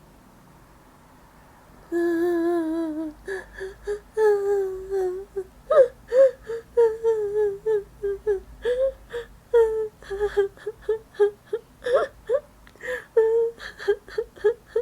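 A woman acting out crying for a sound effect. About two seconds in comes one long wavering wail, then a run of short, broken, whimpering sobs.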